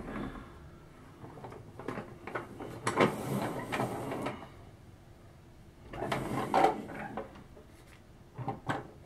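Hard plastic toy vehicle being picked up, turned and set down on a tabletop: two stretches of scraping and rubbing, then a couple of light knocks near the end.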